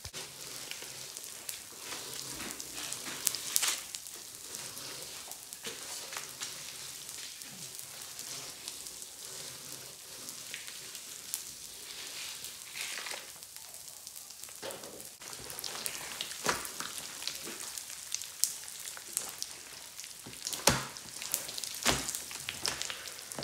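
Pop Rocks candy crackling and popping on clear glue slime: a dense fizzing crackle of many tiny sharp pops, with a few louder snaps. The sticky slime is also being stretched and squished by hand near the end.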